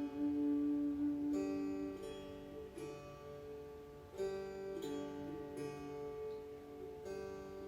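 Music on a plucked string instrument, strummed slowly. A chord is struck about every second and a half and left to ring out.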